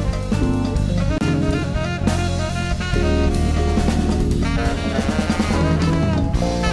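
Background music with a drum kit playing a steady beat under sustained melodic notes.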